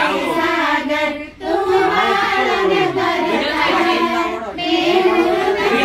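Several high voices, women's or girls', singing a song together, with a short break about a second and a half in.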